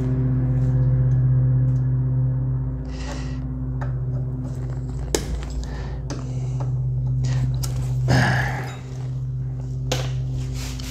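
A few sharp metallic clicks and ticks from hand tools pulling cotter pins out of ATV ball joints and tie rods, over a steady machine hum that is the loudest sound throughout.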